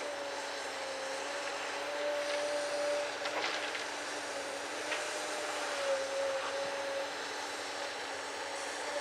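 Komatsu PC200LC hydraulic excavator's diesel engine running under load, with a hydraulic whine that wavers in pitch as the boom and bucket move. A few short knocks come through, about three and a half and five seconds in, as the bucket works the rock.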